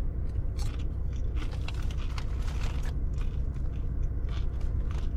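Crunchy chips being eaten: scattered short crackles and crunches over a steady low rumble.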